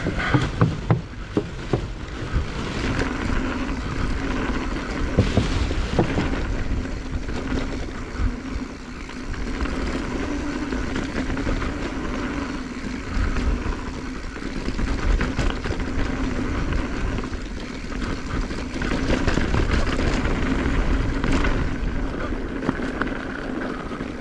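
Wind buffeting the microphone as a 2021 Giant Trance X 29 full-suspension mountain bike rolls down a dirt downhill trail, with a steady rumble of tyres on the ground and scattered knocks and rattles from the bike over bumps.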